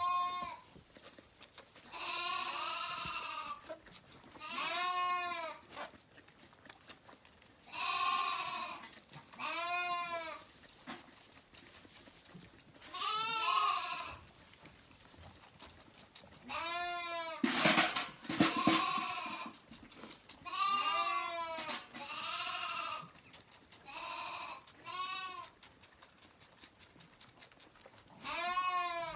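Zwartbles lambs bleating again and again, over a dozen calls with short pauses between, each rising and then falling in pitch. Just past the middle comes a brief, loud, noisy clatter.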